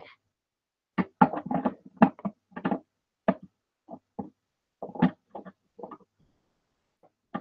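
Plastic LEGO bricks clicking and knocking as hands press and fit pieces onto a partly built model. There is a quick cluster of taps about a second in, then scattered single clicks, and one sharp click near the end.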